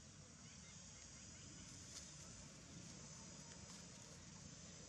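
Near silence: faint outdoor ambience with a steady, high-pitched insect drone and a soft tick about two seconds in.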